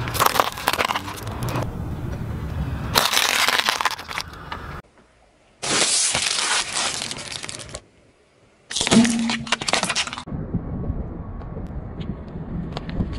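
A car tyre slowly rolling over and crushing small objects on asphalt: hard candy canes crack and snap under it, then further spells of crackling and crunching follow, each cut off abruptly. Near the end there is a lower, softer rumble of the tyre pressing on squishy balls.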